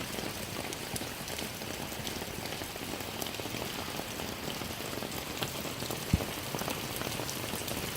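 Steady rain falling, with many separate drop hits ticking through the steady hiss. One low thump about six seconds in.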